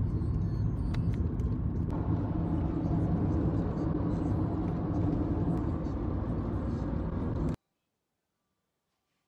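Steady low rumble inside a car's cabin, engine and road noise. It cuts off suddenly about seven and a half seconds in, leaving near silence.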